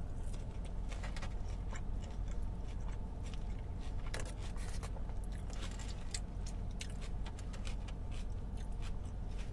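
A person chewing a mouthful of fried taco: a steady run of small clicks from the mouth over a steady low hum.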